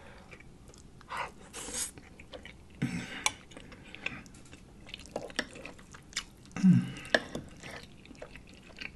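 Close-miked wet chewing and lip-smacking of a man eating tender pot roast, coming in irregular bursts of clicks and squelches.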